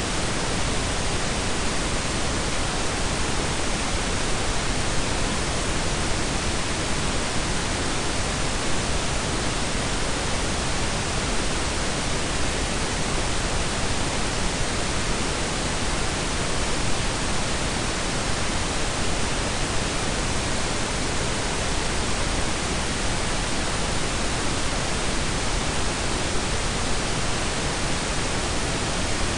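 Synthetic pink and brown noise blended: a steady, even hiss with a deep rumble, unchanging throughout.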